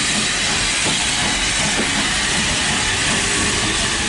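Steam locomotive hauling its coaches past at walking pace: a loud, steady hiss of steam over the low rumble of the rolling train.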